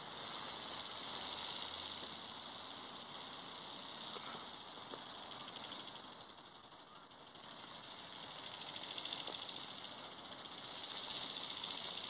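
GoGo Bird remote-control flapping-wing toy bird in flight, its small electric motor and gearbox giving a thin mechanical buzz. The buzz dips about halfway through, then swells again twice.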